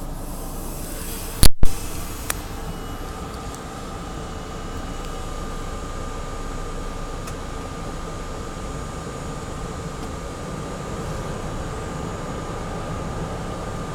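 R32 New York City Subway car running, a steady rumble with a steady high whine underneath. Two loud sharp knocks about a second and a half in, then a lighter click.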